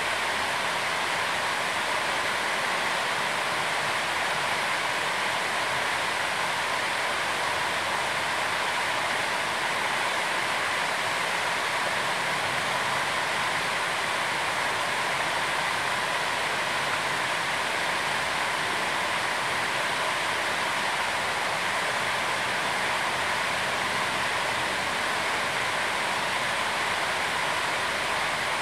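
Steady, even rushing noise like running water, unchanging in level, with no distinct clicks or calls.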